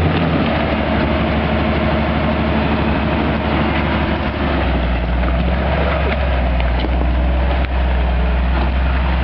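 Engine of an open-top off-road 4x4 running at low speed under load as it crawls over rocks and mud. It is a steady low drone that grows stronger about halfway in.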